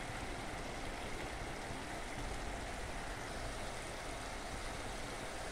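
Onion and spice masala simmering in a steel kadai on a gas flame, a steady faint sizzle and bubbling as its water cooks off and the oil begins to separate.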